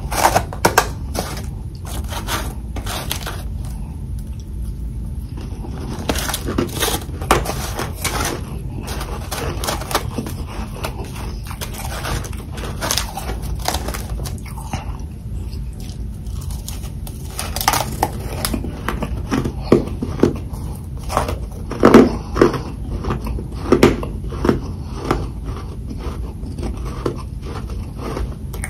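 A person biting and chewing hard freezer frost, with crisp crunches at an irregular pace, densest and loudest in the latter part.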